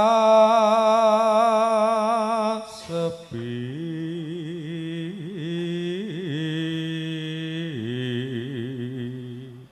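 A man's unaccompanied voice chanting a Javanese puji sesanti sung prayer, holding long notes with wavering ornaments. About three seconds in it drops to a lower pitch and carries on, then stops just before the end.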